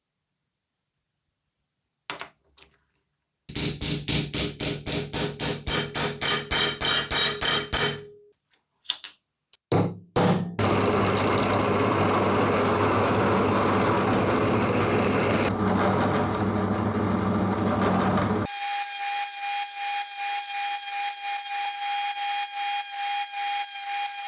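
Metalworking sounds: quick, evenly spaced hammer blows on metal, about four a second, then a few clicks, then a power tool running steadily, ending in a steady humming tone.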